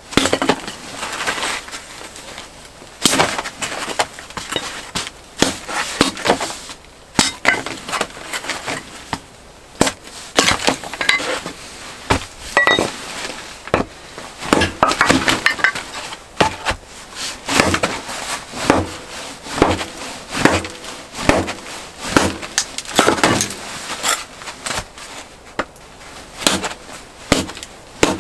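A long run of irregular sharp knocks, clicks and cracks from hard objects being handled or broken, sometimes several in a second.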